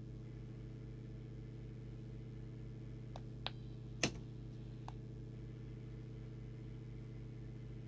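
Steady low hum throughout, with four short clicks from buttons pressed on a Midland M5 CB radio's microphone handset, the loudest about four seconds in.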